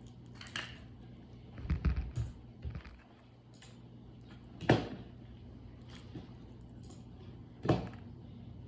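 Handling noises from playing with slime: a cluster of soft knocks about two seconds in, then two sharp clicks about three seconds apart, over a steady low hum.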